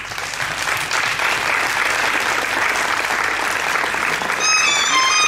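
Audience applauding. About four seconds in, music starts with held high-pitched tones of a string melody.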